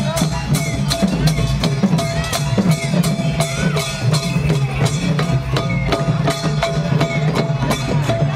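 Khmer chhayam procession music: long hand drums beaten in a brisk, steady rhythm, with a held tone and sliding higher notes carried over the beat.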